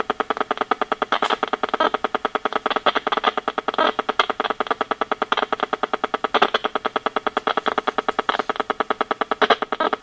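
RF meter's speaker turning the WiFi signals of an iPad and its wireless router into a rapid, even train of buzzing clicks, about ten a second. Brief louder, denser flurries come a few times.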